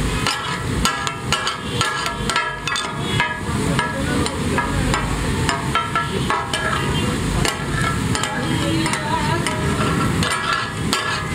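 Two metal spatulas rapidly clanging and chopping against a large flat iron tawa griddle as mutton is minced and stirred in hot oil. The knocks come several a second in an uneven rhythm, some ringing briefly, over the sizzle of frying.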